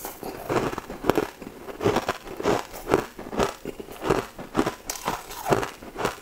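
Close-up crunchy chewing of a sugar-crusted food, the crackling crunches coming in a steady rhythm of about two to three a second.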